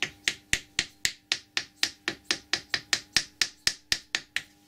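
Rapid, even hammer taps, about four a second, on a wooden drift held against a Colchester lathe compound slide, knocking out the gib strip, which is stuck with old grease and has just begun to move.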